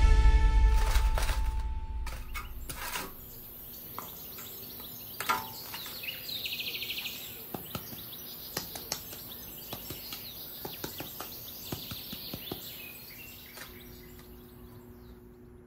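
Background music fading out, then light clicks and taps as terracotta flowerpots are handled and set down. A bird chirps in a short trill about six seconds in.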